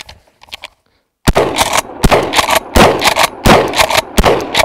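Mossberg Maverick 88 pump-action shotgun fired five times in quick succession, starting about a second in, one shot roughly every 0.7 s, with the pump slide racked between shots.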